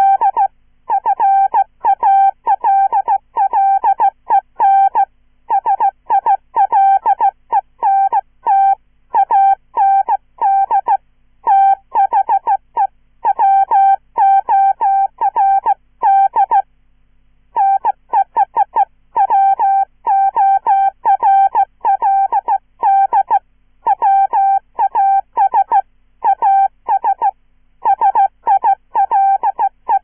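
Hand-sent Morse code at about 15 words per minute, keyed on a straight key and played as a synthesized chirpy tone: quick runs of dots and dashes in letter groups, with a pause of about a second a little past the middle.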